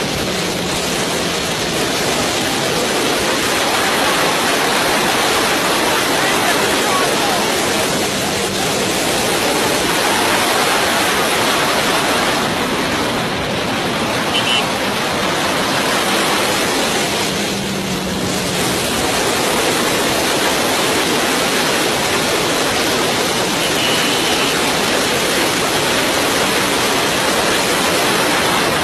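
Steady, loud rushing noise with no clear rhythm or pitch, the kind that wind blowing over a microphone makes when filming from a moving vehicle; a faint low hum shows through now and then.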